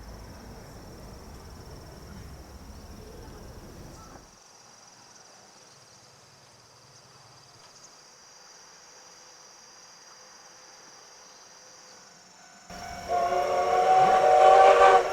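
Insects trilling steadily in the background, then about thirteen seconds in a steam locomotive's whistle starts, loud and held, growing louder toward the end.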